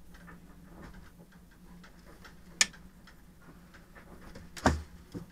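Hinged boat electrical switch panel being swung back up and closed by hand: small scattered clicks, a sharp click about halfway through and a louder knock near the end as it seats in its wooden frame, over a steady low hum.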